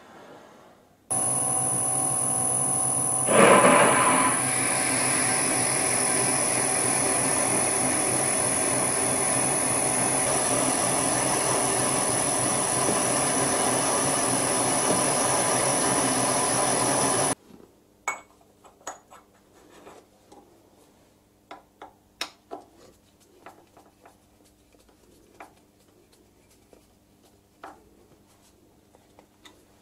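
Vintage Karger lathe running with a steady high whine while a machine reamer is fed into the bore of the spinning spindle attachment, briefly louder a couple of seconds after it starts. The lathe cuts off suddenly about two-thirds of the way through, followed by scattered light metal clicks and taps of the parts and an Allen key being handled.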